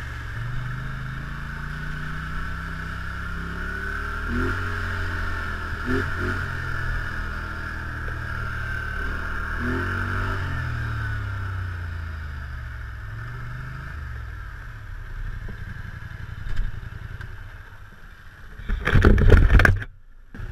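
ATV engine running under the rider, its pitch rising and falling repeatedly as the throttle is opened and eased, with a steady whine above it. Near the end comes a short, loud rush of rumbling noise.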